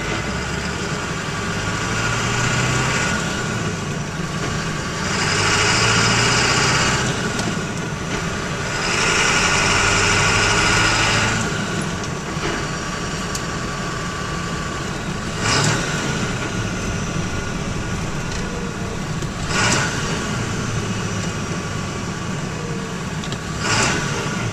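Ford F-350's 7.3-litre Powerstroke turbo-diesel V8 running steadily while the truck is driven, heard from inside the cab. Two louder stretches of rushing noise come in the first half, and three short knocks follow in the second half.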